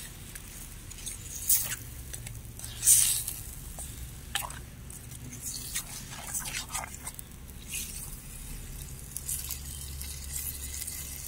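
A steel spoon stirring wet, masala-coated raw chicken in a steel pot: irregular wet squishing, with short scrapes and clinks of the spoon against the pot.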